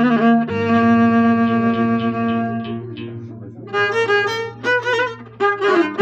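Violin playing an instrumental Middle Atlas opening: a long held note over a steady low drone that fades out about three seconds in, then quicker, shorter phrases.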